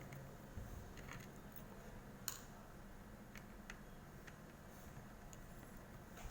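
Faint, scattered small clicks and taps as tools and small parts are handled while an electronic instrument is taken apart by hand, with the strongest click about two seconds in.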